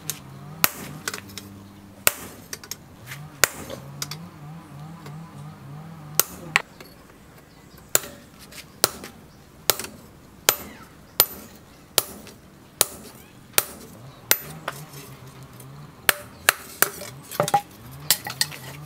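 Hand hammer striking a red-hot steel knife blade on a steel anvil stake: sharp ringing blows about once a second, coming quicker near the end, as the blade is forged. A low drone comes and goes underneath.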